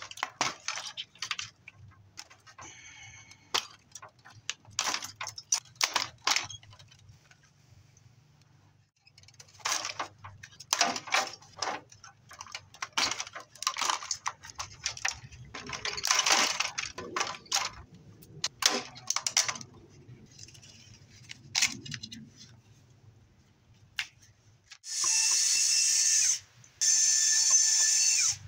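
Clicks, snaps and rattles of wires, connectors and plastic parts being pulled out of a CRT TV's chassis by hand. Near the end a cordless drill runs twice, each run about a second and a half, on the screws of the TV's main circuit board.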